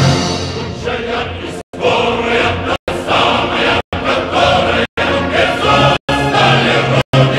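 Choral music with sustained sung notes, broken by brief, sudden silences about once a second that chop it into even pieces.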